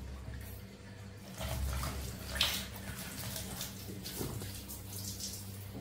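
Water splashing in a small tiled bathroom, in a few short splashes.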